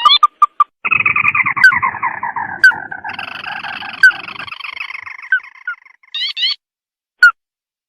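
Recorded lure call of a red-eyed crake (tikusan mata merah): a few quick short notes, then a long churring trill that slowly falls in pitch and fades over about five seconds, followed by a short burst of rising notes and a single click near the end.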